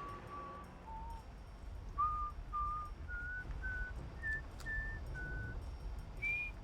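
A person whistling a slow tune of about a dozen short single notes, each a clear pure tone, stepping mostly upward in pitch, over a low background rumble.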